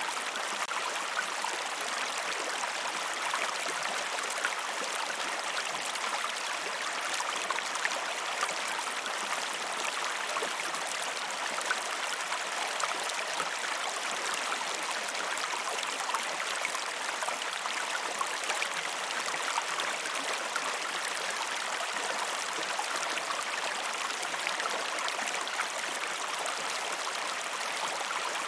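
Flowing river water, a steady rushing and babbling with small splashes throughout.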